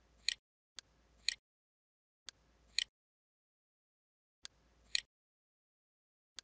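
Computer mouse button clicks, in four short groups a second or two apart: each is a light click followed about half a second later by a sharper double click, with dead silence between the groups.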